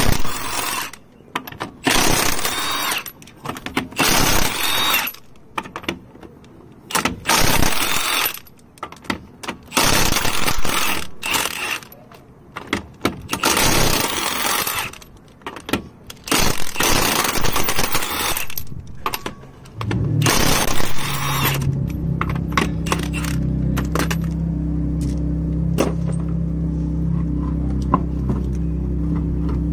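Milwaukee cordless impact wrench hammering 19 mm lug nuts off a truck wheel. It comes in a series of rattling bursts, one to two seconds each, over the first twenty seconds. After that a steady low hum carries on.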